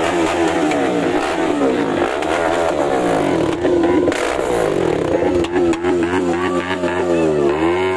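A KTM RC sport bike's single-cylinder engine being revved repeatedly at a standstill. The pitch climbs and falls about once a second, with a deeper drop and climb near the end.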